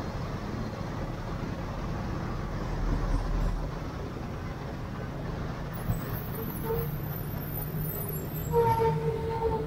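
Motorbike and street traffic running steadily in city traffic. A horn gives a short beep about two-thirds of the way through, then sounds again for about a second near the end, louder than the traffic.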